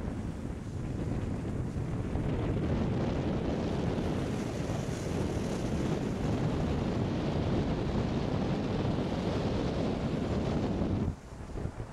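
Wind buffeting the microphone, with the hiss of skis sliding over snow: a loud, steady, rough noise that cuts off abruptly about eleven seconds in.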